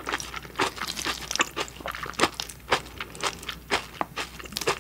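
Close-miked eating: crunching and chewing, a string of short sharp crunches about two a second.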